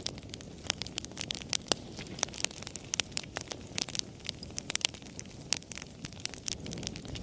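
Fire crackling in a fireplace: frequent, irregular sharp pops and snaps over a low, soft rush of flame.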